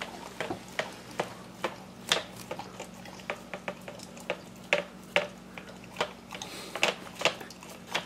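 Rhodesian Ridgeback licking icing off a piece of cake on a plate: a run of short, wet lapping clicks at an uneven pace, about two or three a second.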